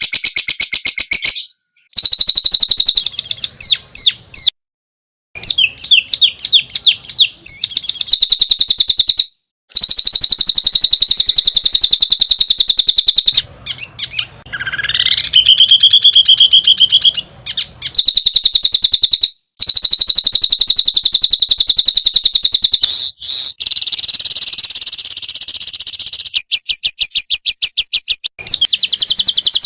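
Songbird song on a masteran tutoring recording: loud phrases of rapid, evenly repeated high notes, cut by several sudden short silences, with one rising whistled note about halfway through.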